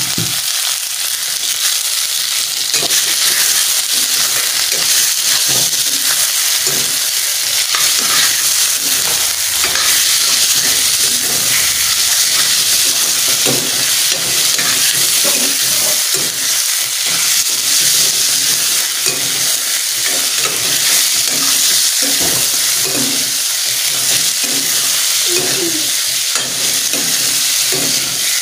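Chicken pieces sizzling steadily in hot oil in a stainless steel pot. A steel spoon scrapes and clinks against the pot at irregular intervals as the meat is stirred.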